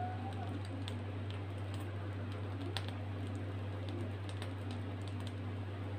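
A steady low hum, with faint scattered small ticks and clicks over it.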